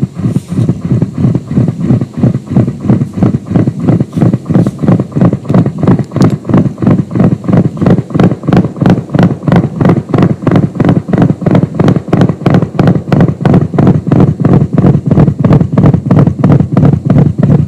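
Live experimental electronic music from a modular analogue and digital rig: a loud low pulse repeating evenly, about four to five times a second.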